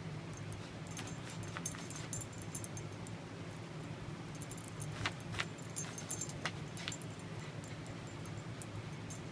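Small dog digging and pawing at a blanket on carpet: its collar tags jingle in quick clicking spells, and its paws scratch at the fabric. The spells come about a second in and again around five to seven seconds in, over a steady low hum.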